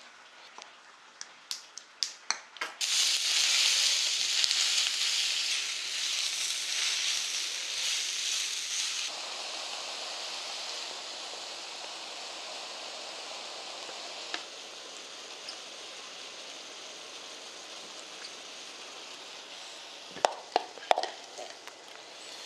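Fish cake strips, carrot and onion frying in oil in a pan, sizzling. The sizzle starts suddenly about three seconds in after a few sharp clicks, is loudest for several seconds, then settles to a quieter steady sizzle. A few clinks come near the end.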